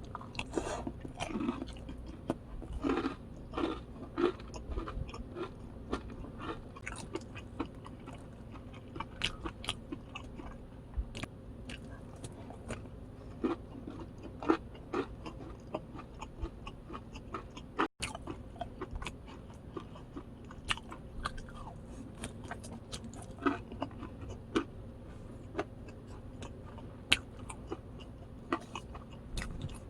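Close-up chewing and crunching of crispy fried boneless chicken, a steady run of irregular sharp bites and crunches with wet mouth sounds, broken by a momentary gap about halfway.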